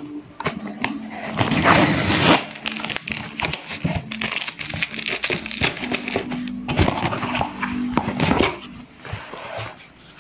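A cardboard parcel being opened by hand: packaging tearing and crinkling, with scattered rustles and light knocks, loudest about two seconds in and again near the end.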